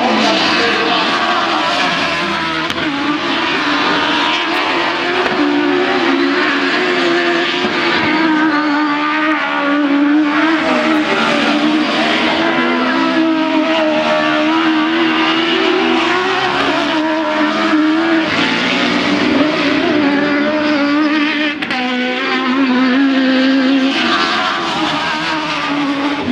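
Several autocross racing buggies at high revs, the engine notes rising and falling as they accelerate and slide through the dirt corners.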